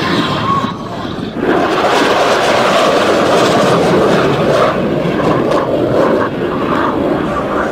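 Fighter jet passing low and fast near the speed of sound, its roar jumping louder about a second and a half in and holding loud as it flies off.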